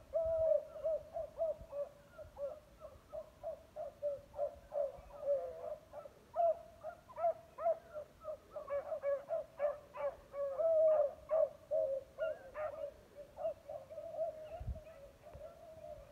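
A pack of beagles baying in full cry, many overlapping calls every second and thickest about two-thirds of the way through: the hounds giving voice as they run a rabbit's scent line.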